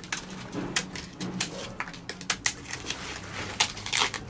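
Dry, dead bark being peeled by hand off a palo de Brasil (Dracaena fragrans) trunk: irregular crackling and snapping clicks, with the two loudest snaps near the end.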